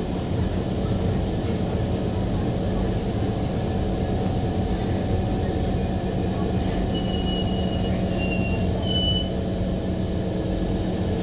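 Interior running sound of a Kawasaki Heavy Industries C151 train: a steady rumble with a low hum from the motor car as the train moves alongside a station platform. A few short high tones sound about seven to nine seconds in.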